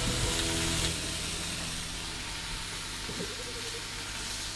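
Bacon strips frying in a stainless steel skillet, a steady sizzle, with a brief tap about three seconds in.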